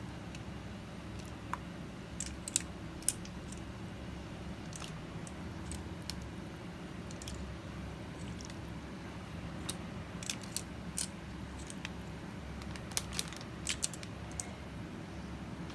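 Sporadic light crinkles and clicks from handling a plastic zip-top bag of marinated chicken thighs, over a steady low hum.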